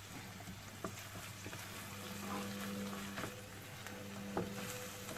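Minced meat and chopped tomato sizzling in oil in an open frying pan while being stirred with a wooden spatula, which knocks and scrapes against the pan a few times.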